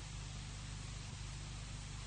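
Steady hiss with a low hum underneath: the background noise floor of an audio recording, with no speech.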